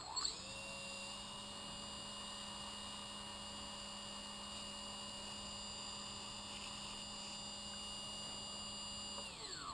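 Small brushless electric motor of an RC plane, driven by its ESC on throttle, spinning up quickly to a steady whine that holds for about nine seconds, then winding down near the end.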